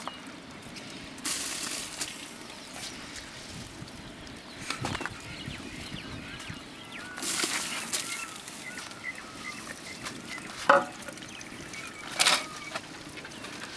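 Soaked rice being poured in several bursts from a steel bowl into a large pot of boiling biriyani stock: short hissing pours with splashes, and a couple of knocks.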